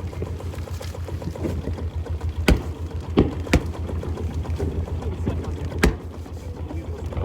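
Cruise boat's engine running with a steady low rumble, with a few sharp knocks over it.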